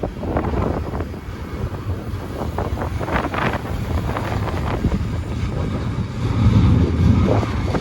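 A slow freight train rolling past, with a steady low rumble and irregular clicks and clanks from the wheels and cars. The rumble grows heavier near the end. Wind buffets the microphone.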